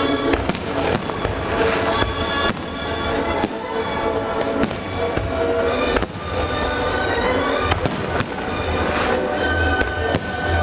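Aerial firework shells bursting in a display, with frequent sharp bangs at irregular intervals, about one every half second to a second. Music plays underneath.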